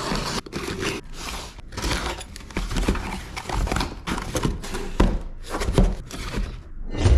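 Cardboard shipping box being opened and handled by hand: a run of short rustling and scraping cardboard noises with dull thumps on a wooden tabletop, the loudest knock near the end.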